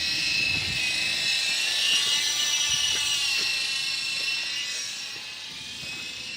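Small electric RC helicopter's motor and rotor whining in flight, a high-pitched whine that rises a little about two seconds in, then drops in pitch and fades somewhat near the end.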